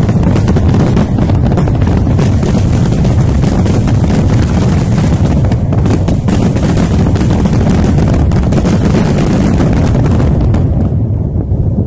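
Fireworks going off in a dense, rapid barrage of crackles and bangs over a heavy rumble; the crackling dies away near the end.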